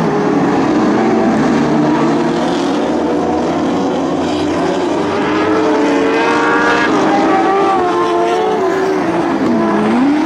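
Several winged Lightning Sprint racing cars running on a dirt oval, their engines revving at high pitch and overlapping, each pitch rising and falling as the cars lift off and accelerate through the turns. Near the end one engine's pitch dips and climbs again.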